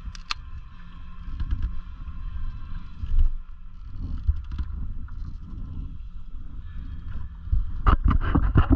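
A beer can being opened, a sharp click and hiss just after the start, over a steady low rumble of wind on the microphone and water lapping at a small sailboat's hull. A cluster of louder knocks comes near the end.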